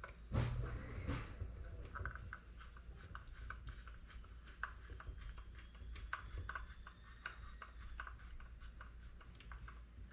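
A screw being driven into the edger's light housing with a hand screwdriver: a handling knock and rustle about half a second in, then a long run of small, irregular clicks, several a second.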